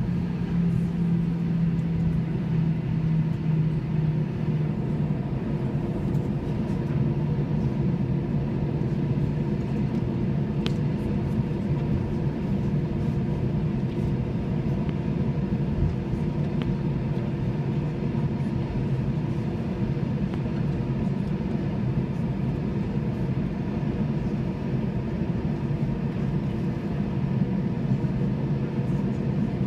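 Steady drone of an Airbus A321's jet engines heard inside the cabin, running at low power before takeoff, with a low hum that drops slightly in pitch about five seconds in.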